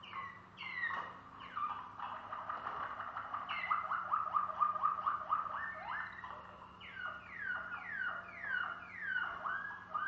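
Waterslager (Malinois) canary singing: a few falling notes, then a fast rolling trill of many short repeated strokes in the middle, then a run of about five falling notes near the end.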